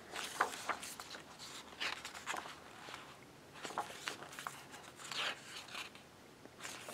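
Paper pages of a large photo book rustling as they are handled and turned by hand: a series of soft, irregular rustles, with a page turned about four seconds in.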